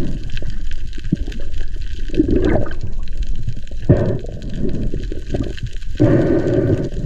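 Water sloshing and gurgling, swelling and easing every second or two.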